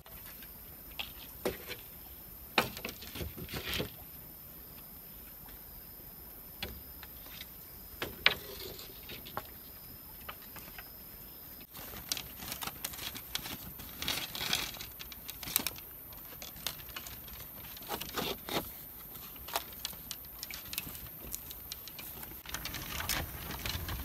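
Rustling, scraping and clicking of thin bamboo strips being pulled tight and wound around green bamboo poles to lash them together, with a few sharp clicks.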